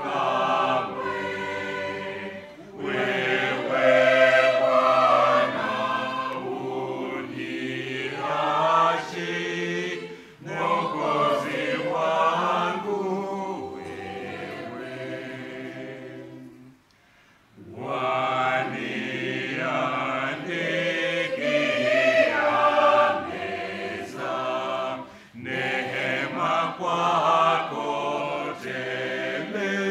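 Church choir singing a Swahili hymn in sustained phrases, with short breaks between lines and a clear pause a little past halfway.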